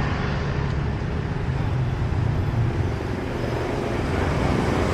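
City street traffic: a steady mix of engine and tyre noise from passing motorbikes and cars.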